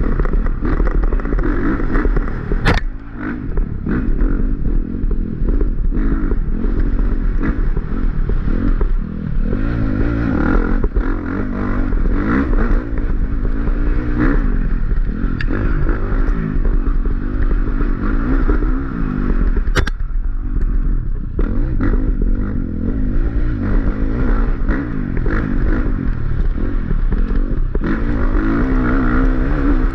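Dirt bike engine revving up and down continuously as the bike is ridden hard through a wooded trail, with chassis clatter over the rough ground and a sharp knock about three seconds in and again near twenty seconds.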